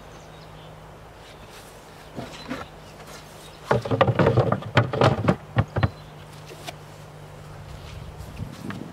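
A wooden beehive box and its lid being handled: a cluster of sharp wooden knocks and clatter about four seconds in, over a low steady hum.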